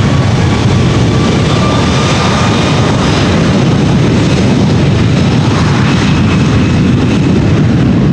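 Airbus A330-200 airliner's twin jet engines running as it taxis onto the runway: a steady, loud roar with a faint whine that rises slightly in the first couple of seconds.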